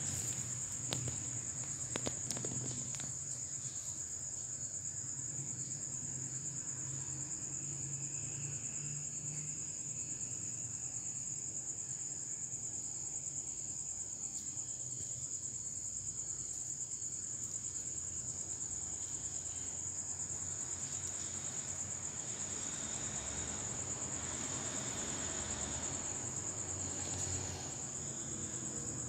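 Crickets trilling steadily in a continuous high-pitched chorus. A sharp knock right at the start and a couple of lighter clicks in the first few seconds.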